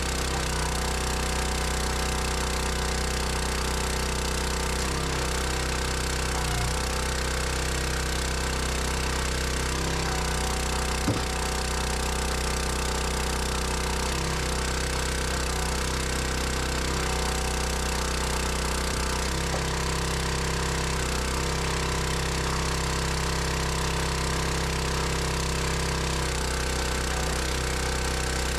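An engine running steadily at an even speed, its note shifting slightly every couple of seconds, with one sharp knock about eleven seconds in.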